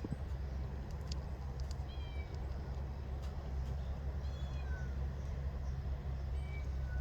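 A domestic cat giving several short, faint, high-pitched meows spaced a second or two apart, over a steady low rumble.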